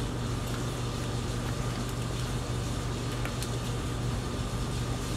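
Steady low hum over an even hiss, the drone of a running machine in the room, with a few faint ticks about two and three and a half seconds in.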